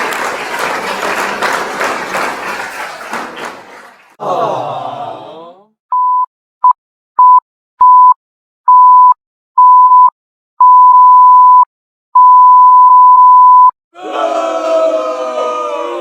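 Sound-effect sequence: crowd applause and cheering fading out, then a short sound sliding down in pitch, then a run of loud 1 kHz censor bleeps, short at first and growing longer, the last about a second and a half. Music with plucked strings starts near the end.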